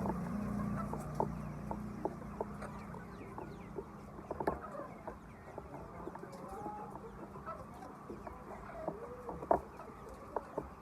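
Laying hens clucking with short, curving calls, among many scattered sharp clicks and taps. A low steady hum underneath fades out over the first few seconds.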